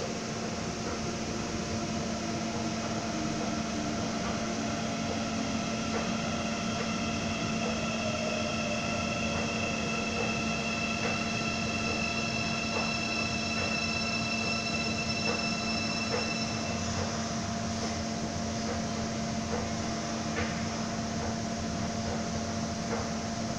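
Airport Railroad (AREX) IGBT-VVVF electric train approaching through the tunnel: a steady rumble with several high whining tones from its inverter drive, which stop about two-thirds of the way in. A steady low hum runs underneath.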